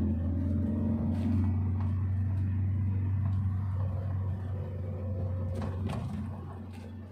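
Car cabin noise while driving: a steady low rumble of engine and tyres on the road, fading somewhat near the end.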